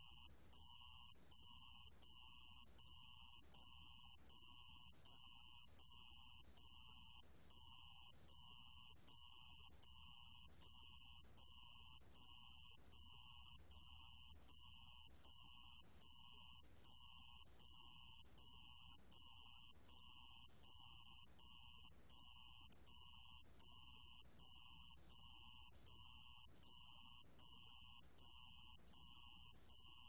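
A 모래방울벌레 cricket singing, recorded at 28 °C: a high-pitched trill broken into chirps about half a second long, repeated evenly about three times every two seconds without a break.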